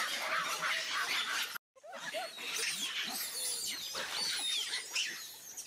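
A troop of macaques squealing and chattering in short high calls. The sound drops out for a moment about one and a half seconds in, and high sliding chirps come in the second half.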